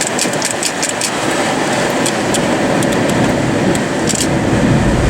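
Car engine running under a loud, steady rushing noise, with scattered sharp ticks; a low rumble grows stronger near the end.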